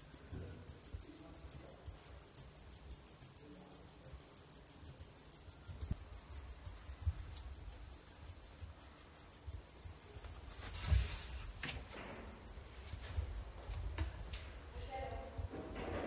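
A cricket chirping in a steady, rapid train of high chirps, about five a second, slowly growing fainter. A short knock about eleven seconds in.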